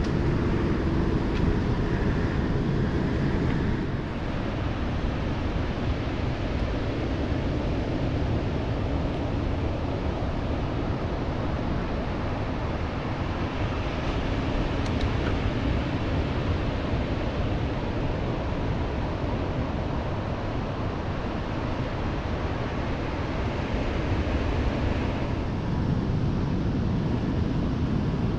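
Steady rush and low rumble of wind buffeting the microphone of a camera riding on a moving electric mountain bike, dipping slightly about four seconds in.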